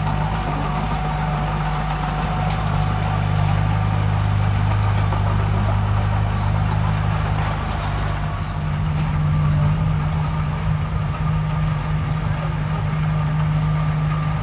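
Diesel engine of construction machinery (mini bulldozer or dump truck) running steadily, with light clattering over it.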